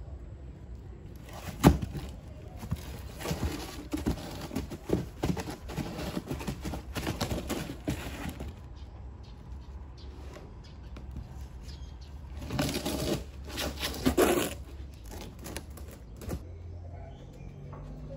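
Rustling and crinkling of trash being handled and moved about, in two spells, the second shorter, with a sharp crackle about a second and a half in as the loudest moment.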